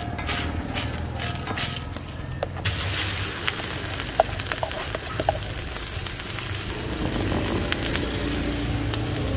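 A metal spoon spreading oil across a hot iron griddle in short strokes. About two and a half seconds in, a sudden steady sizzle starts as beaten egg with tomato and onion is poured into the hot oil and fries, with a few light spoon taps.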